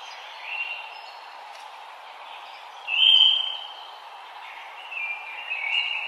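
Wild birds chirping over a steady background hiss: a short call about half a second in, a loud call about three seconds in, and a run of calls near the end.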